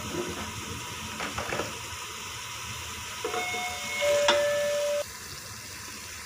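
Chicken and masala frying in oil in a pot, a steady sizzle with a few scrapes of a wooden spoon. About three seconds in, a steady tone sounds for under two seconds, stepping down in pitch once, and the sizzle drops off suddenly about five seconds in.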